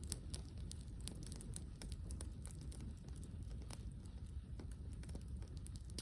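Campfire crackling: scattered sharp pops and snaps from burning wood over a low, steady rumble.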